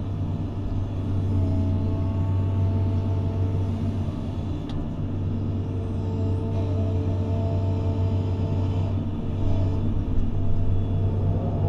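Doosan DX180 excavator's diesel engine running steadily, heard from inside the cab, with whines that shift in pitch as the boom and bucket work the dirt pile. A whine rises near the end, and there is a single sharp click about halfway through.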